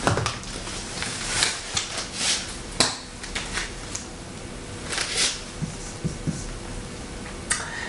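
Short rustles, taps and scrapes of handling a paperback book and a marker pen, with a marker stroking on a whiteboard near the end.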